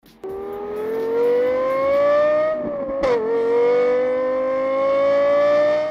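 Car engine accelerating, its pitch climbing steadily, then dropping at a gear change about three seconds in and climbing again.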